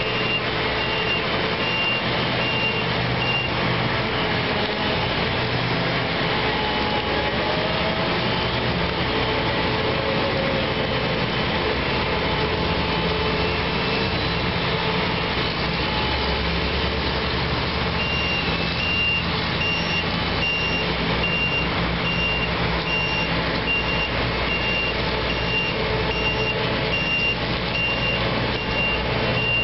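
Lexion 585R track combine's diesel engine running steadily as the machine drives and turns. A backup alarm beeps about twice a second in the first few seconds and again through the last third.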